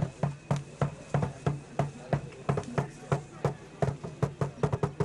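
Drumming: sharp drum strikes in a steady repeating rhythm, about three a second.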